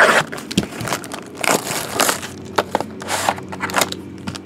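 Plastic and foil wrapping crinkling and crackling in quick irregular bursts, with light knocks of cardboard, as a sealed trading card box is unwrapped and opened.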